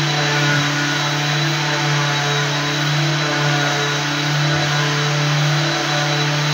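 An electric floor machine running steadily: a constant motor hum under an even hiss.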